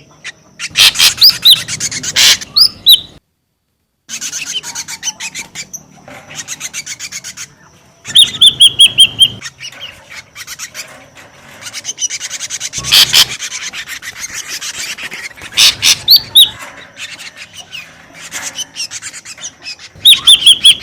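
Ashy drongo calling: bursts of fast, harsh rasping chatter mixed with quick runs of short whistled notes that drop slightly in pitch, broken by a couple of brief silences.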